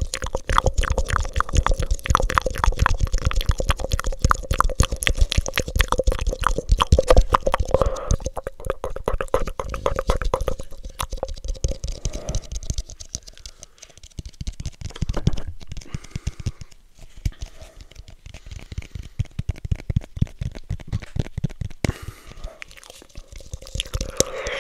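Cupped mouth sounds made into a black cone held over the microphone: rapid lip and tongue clicks and pops. They are dense at first and become sparser and quieter about halfway through.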